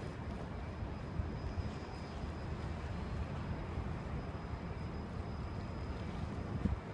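Wind buffeting the microphone in a low, uneven rumble, over the steady noise of a harbour ferry's engine and the water, with a stronger gust near the end.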